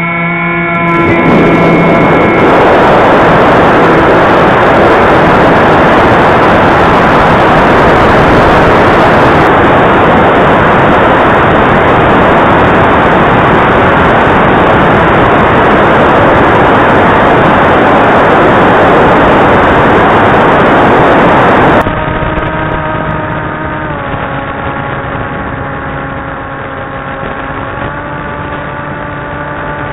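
FPV racing quadcopter's electric motors heard through the camera's built-in microphone. A whine rises as the motors spool up, and is then buried under a loud rushing hiss of wind over the Foxeer Arrow V2's front-mounted mic. About 22 seconds in the sound switches to the RunCam Swift 2's rear-mounted mic, where the motor whine is clear again and steps down and back up in pitch with the throttle.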